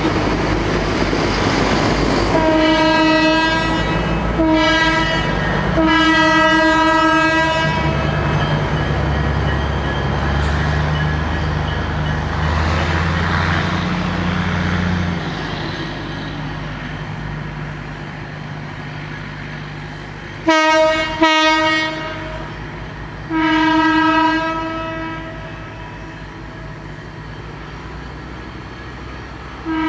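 Locomotive air horn of a train moving away, sounding in separate blasts: three in the first eight seconds, two short ones and a longer one from about twenty to twenty-five seconds in, and another starting near the end. Under it a low rumble from the passing train fades out by about fifteen seconds in.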